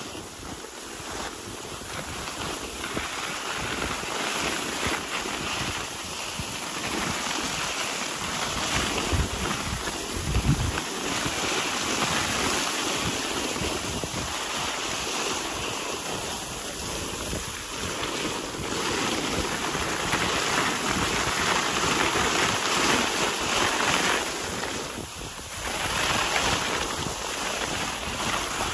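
Steady rushing of wind over the microphone, mixed with the hiss of cross-country skis gliding on groomed snow. Low buffeting gusts hit the microphone about nine to ten seconds in.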